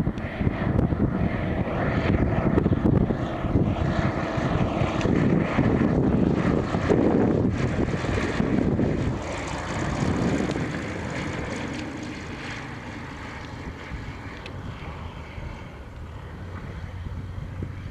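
Yak-50's nine-cylinder radial engine and propeller passing low on landing approach, then touching down and rolling along the runway. The engine is loudest over the first half and drops away to a lower, steadier level over the second half.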